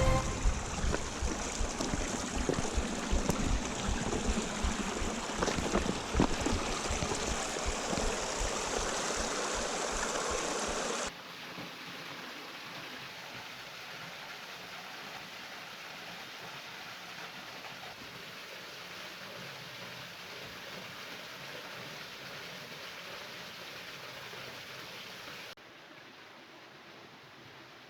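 Rushing water of a gorge stream or waterfall, an even steady hiss, loud at first with frequent low bumps; it drops abruptly to a quieter level about eleven seconds in, and again near the end.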